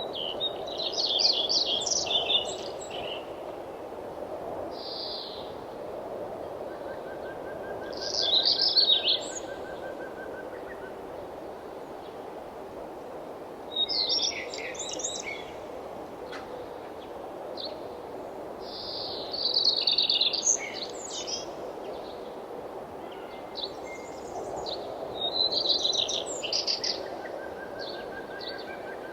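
A songbird singing short phrases of rapid high notes, five times, about every five to six seconds, over a steady low rush. Twice a fainter call of quick, evenly spaced notes on one lower pitch runs for a few seconds.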